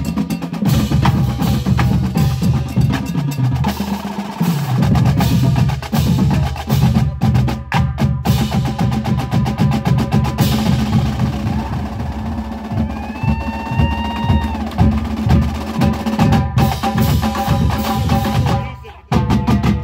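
Marching drumline playing a cadence: snare drums, tenor drums and tuned bass drums in a dense, driving rhythm, with rolls and bass-drum notes stepping in pitch. The drumming stops sharply just before the end.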